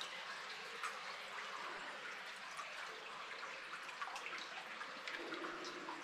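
Underground stream running in a mine: a steady trickle of flowing water with scattered drips.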